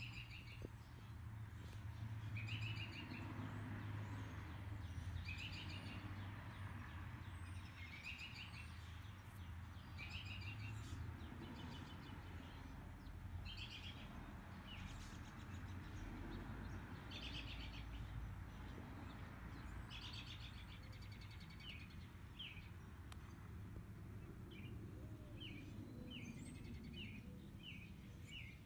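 Birds chirping: short trilled calls repeated every couple of seconds, then quicker short chirps near the end, over a faint low steady rumble.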